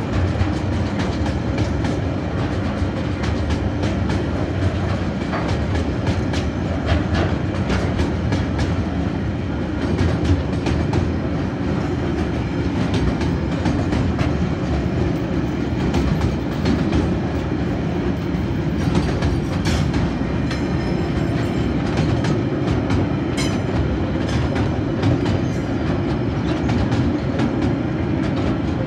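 Tasrail freight wagons, loaded with containers and then logs, rolling steadily past: a continuous rumble of steel wheels on the rails with many sharp clicks as the wheels cross the rail joints.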